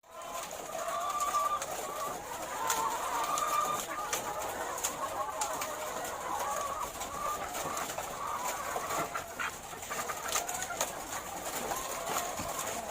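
A flock of laying hens clucking and calling, many voices overlapping without a break, with scattered sharp clicks among them.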